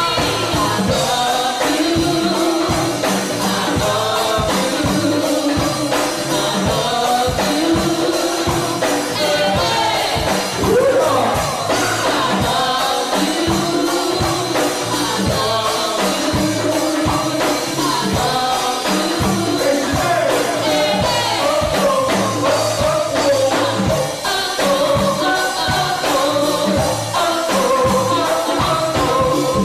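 Live band playing with a lead vocal over a steady drum beat.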